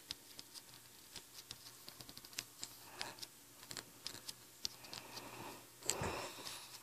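Faint handling noise of a phone held in the hand: scattered light clicks and scratches from fingers shifting on the phone as it is moved about, with a soft rustle about six seconds in.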